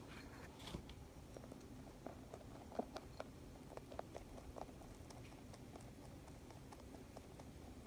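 Rabbit eating food pellets: a faint, irregular run of small crunches and clicks, several a second at first and thinning out after about five seconds.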